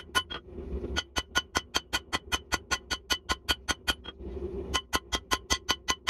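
Rapid, even hammer blows on red-hot steel on an anvil, about five a second, each with a metallic ring, pausing briefly about half a second in and again about four seconds in. The steel is a jackhammer bit being drawn out into a bick's round horn.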